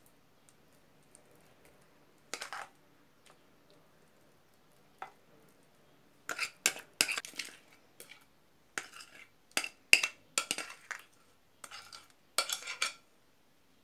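Metal spoon scraping and clinking against a glass mixing bowl, scooping out thick cake batter. One short scrape about two seconds in, then a quick run of scrapes and taps through the second half.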